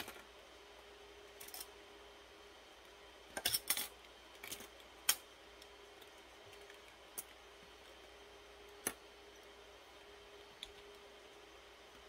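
Scattered sharp clicks and taps of small plastic and metal parts being handled and snapped into place on a server motherboard as the empty processor sockets are closed up, with a small cluster of clicks about three and a half seconds in. A faint steady hum lies underneath.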